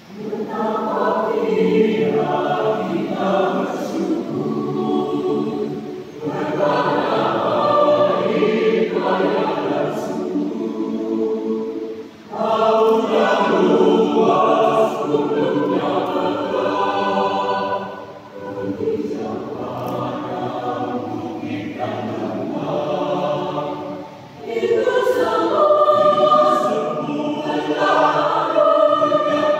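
Mixed choir of men's and women's voices singing, starting right at the opening, in phrases of about six seconds separated by short breaks.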